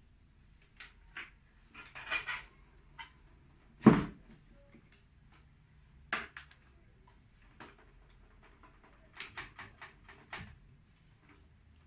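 Graphics card being taken out of a desktop PC case: scattered clicks and knocks of handling, with one sharp, loud knock about four seconds in.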